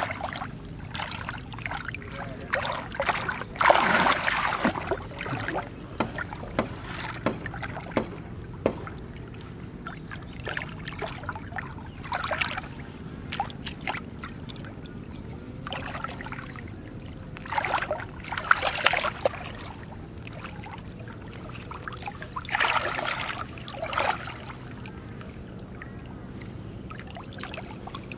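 Hands groping through shallow muddy water, sloshing and splashing in short bursts every few seconds, with small wet clicks in between.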